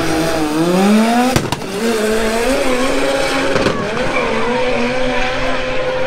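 Drag-racing car accelerating hard down the strip, its engine pitch climbing through the gears with a brief break at each gear change, about a second and a half in and again near four seconds.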